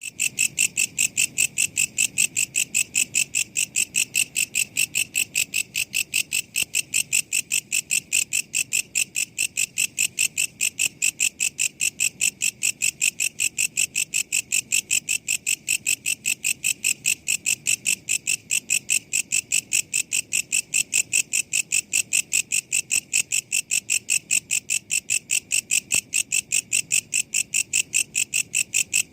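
Walang kecek insect calling in an unbroken run of sharp, evenly spaced chirps, about three to four a second, high-pitched and ringing.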